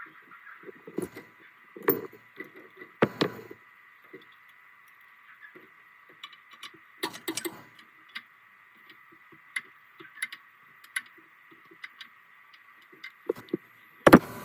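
Irregular metallic clinks, taps and knocks of hand tools on metal, with a few louder clusters and one sharp knock near the end. A faint steady high hum runs underneath.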